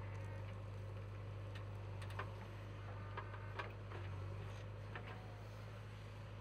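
JCB 3DX backhoe loader's diesel engine running with a steady low hum, heard from a distance, with a few sharp clicks and knocks scattered through as the loader arm swings the bucket of soil over the tipper.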